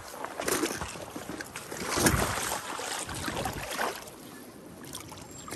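Shallow river water splashing and sloshing in several irregular bursts as someone wades along the edge, the loudest about two seconds in.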